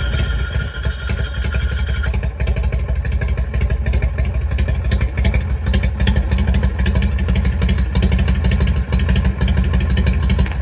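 Harley-Davidson rigid-frame Shovelhead's air-cooled V-twin engine running steadily with rapid, even firing pulses, on a final check after its clutch judder was repaired. A higher tone in the sound fades out about two seconds in.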